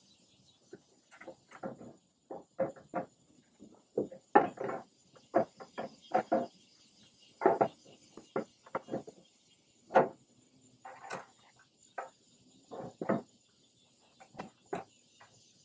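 Irregular metallic clicks and taps of a small hex key working stainless button screws into a metal plate on a grill's side shelf, one to three a second, with a few louder knocks. A steady high hiss runs underneath.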